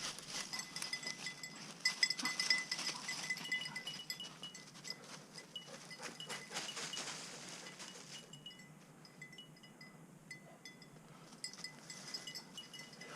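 A small bell on a hunting dog's collar, jingling in short, irregular rings as the dog moves about; the jingling thins out about two-thirds of the way through, then picks up again near the end.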